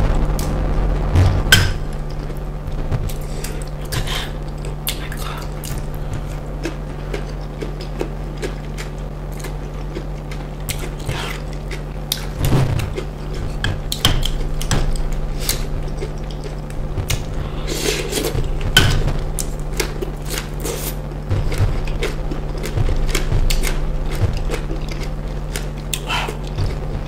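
Close-miked eating sounds: wet chewing and mouth smacks of fish stew, with scattered clicks and scrapes of a plastic spoon against a glass bowl. A steady low hum runs underneath.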